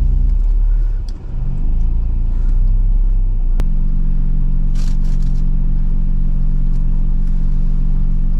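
Jeep Wrangler JL's engine working at low speed in four-wheel-drive low on a rocky climb. Its revs ease off, dip about a second in and climb again, then hold steady after a sharp click about three and a half seconds in.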